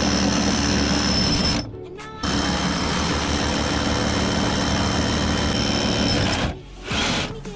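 A small motor-driven machine running steadily with a high whine, cutting out briefly about two seconds in, starting again, and stopping near the end.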